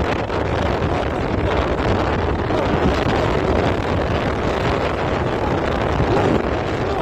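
Steady rush of wind buffeting the microphone, mixed with engine and tyre noise from a moving vehicle.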